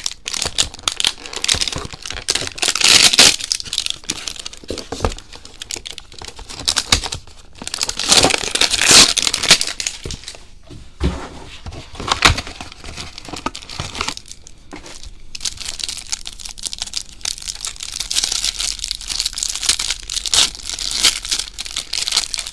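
Shrink wrap and packaging of trading card hanger boxes crinkling and tearing as they are cut and ripped open. The sound comes in several loud rustling stretches with a few sharp clicks between them.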